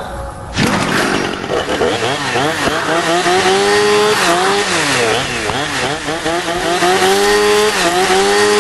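Chainsaw cutting in loud and sudden about half a second in, then revving over and over, its engine pitch rising and falling.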